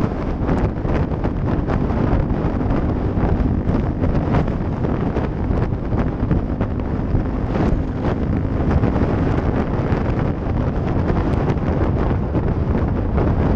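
Heavy wind buffeting on a helmet camera's microphone at road speed on a motorcycle, with the steady tone of a 2015 Honda Grom's 125 cc single-cylinder engine with a Pro Circuit exhaust faintly underneath.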